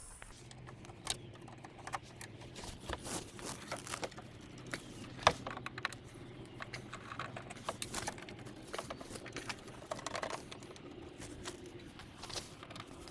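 Hand-powered T20 Torx driver undoing the small Torx bolts on an electric bike's side panel: a scatter of light, irregular clicks and taps of tool and bolts, with one sharper tap about five seconds in.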